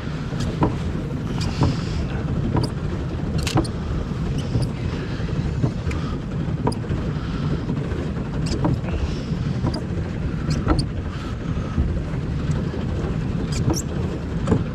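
Small boat moving across a lake: a steady low rush of water and wind on the microphone, with light clicks and knocks coming irregularly throughout.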